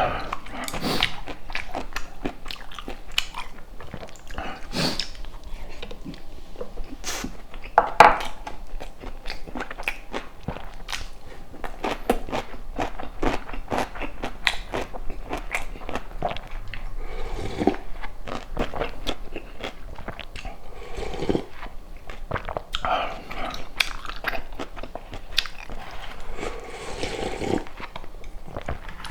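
Close-miked eating: biting and chewing food, with many small crunchy clicks all through and a sharper bite about eight seconds in.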